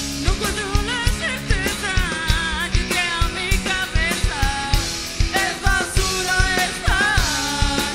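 A rock band playing live: electric guitars over a driving drum kit, with a lead singer's voice wavering and sliding over the top.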